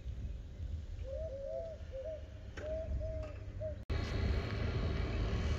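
Wind rumbling on the microphone while a pigeon coos in a run of short, arched notes. About four seconds in, the sound cuts suddenly to a steady mechanical hum with wind.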